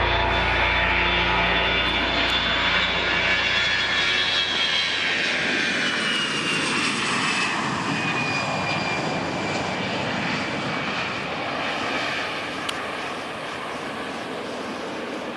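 Jet airliner passing close by on landing approach: a loud rushing roar with a high engine whine that slides steadily down in pitch as it goes past, then slowly fades.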